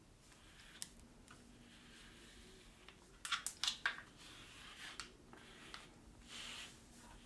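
A grooming brush swishing through a Maine Coon cat's long coat, in soft strokes. A quick cluster of sharp clicks, the loudest sound here, comes a little past halfway.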